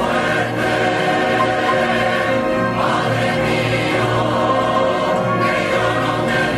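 Large mixed choir of men's and women's voices singing loud, sustained chords at an even level.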